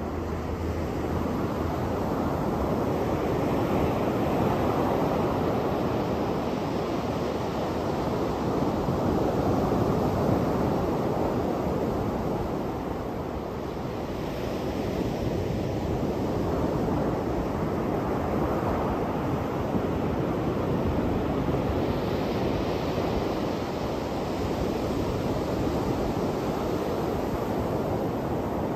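Ocean surf breaking and washing up a sandy beach: a continuous rushing that swells and eases every few seconds as the waves come in.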